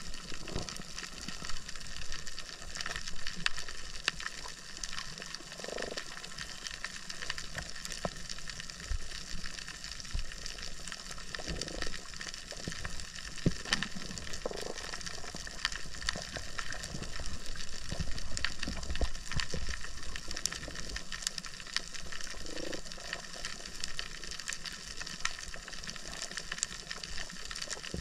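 Underwater coral-reef ambience: a steady crackling hiss of countless tiny clicks, the sound of snapping shrimp on a tropical reef. A low rumble of water movement swells about two-thirds of the way through.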